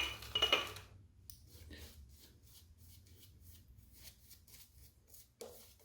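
A synthetic shaving brush working up shave soap lather, with quiet swishing strokes at about four a second. In the first second there is loud clinking of the brush against a hard soap tub or bowl.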